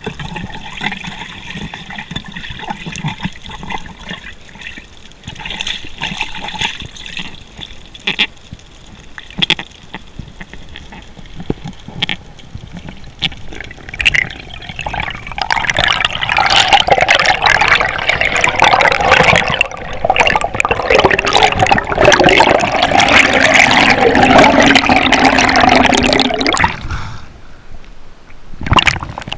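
Water sloshing and bubbling around a GoPro camera in the water. A much louder spell of rushing, gurgling water begins about halfway through and stops abruptly a few seconds before the end.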